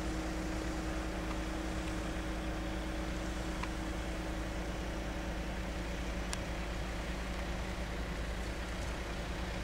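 A steady low mechanical hum with several held tones over a constant rumble, unchanging throughout, with one faint click about six seconds in.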